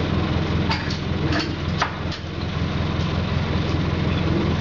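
Truck engine idling steadily, with a few short knocks about a second in.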